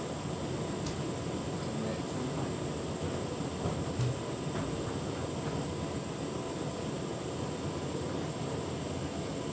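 Tumble dryer running on a cold-air refresh cycle, drum turning with a steady whir of motor and fan. A faint click comes about a second in, and a single low thump, the loudest sound, about four seconds in.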